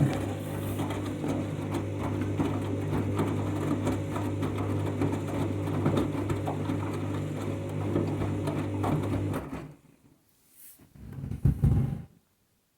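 Candy washing machine's drum motor running through the first rinse: a steady mechanical hum with fine ticking. It stops about ten seconds in, and a short, loud, low knock follows a second or two later.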